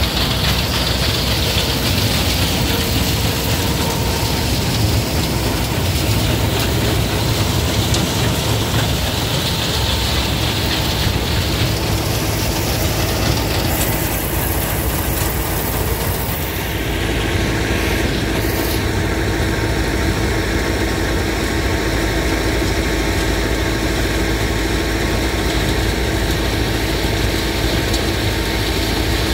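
An engine running steadily. About two-thirds of the way through its sound changes and settles into a steadier hum.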